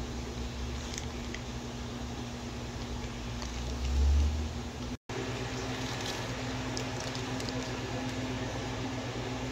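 Steady mechanical hum of fish-room equipment, like aquarium air pumps and filters, with a faint held tone. A brief low thump comes about four seconds in, and the sound drops out for an instant about five seconds in.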